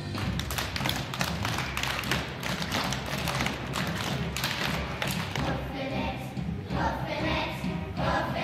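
Children's choir singing along to a recorded backing track, with a run of rhythmic thumps from the children's movements; the singing grows louder near the end.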